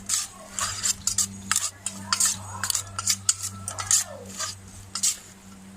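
Spoon clinking and scraping against a bowl as the grilled-pork salad with sliced shallots is mixed: a quick, irregular run of sharp clicks and knocks. A steady low hum runs underneath.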